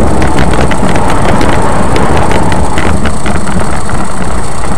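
Car engine and road noise heard inside the cabin of a moving car, a loud steady rumble with many small crackles and no single impact.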